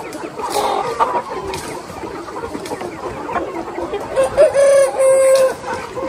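A large flock of free-range chickens clucking throughout, with a rooster crowing loudly about four seconds in, one long call of about a second and a half.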